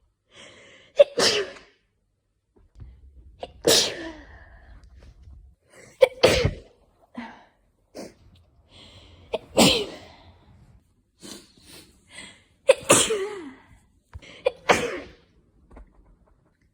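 A person in a sneezing fit: about six loud sneezes a few seconds apart, each with a short catching breath just before it. The sneezer hopes it is hayfever rather than a cold.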